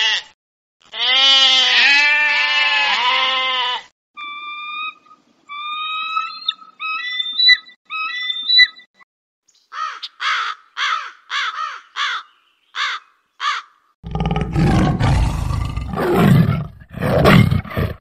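A run of animal calls: sheep bleating for about three seconds, then a bird's high whistled chirps, then a raven giving about eight short croaks, and finally tigers roaring and growling loudly for the last four seconds.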